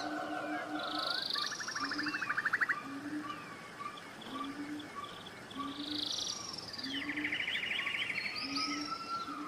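Forest birds calling together: rapid trills, high chirps and whistled notes overlap, over a short low note repeated roughly once a second.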